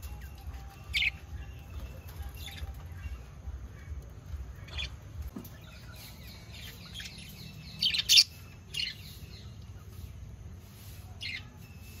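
Budgerigars chirping: short, sharp chirps every second or two, with a louder cluster of several chirps about eight seconds in, over a low steady hum.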